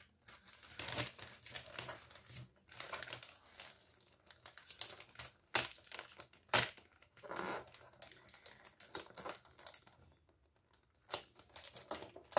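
Glossy gift-wrapping paper crinkling, rustling and tearing as it is picked open by hand, with two sharp crackles a little past halfway and a quieter moment near the end.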